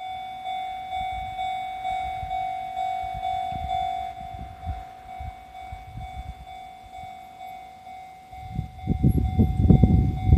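Level-crossing warning bell ringing, a steady electronic ding about twice a second. About eight seconds in, the loud, uneven running noise of an EF66 electric locomotive and its freight train passing over the crossing comes in and drowns out much of the bell.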